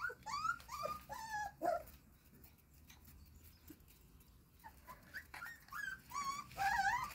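Four-week-old golden retriever puppies whining and whimpering in high, wavering cries. The cries come in two bouts with a pause of about three seconds between them.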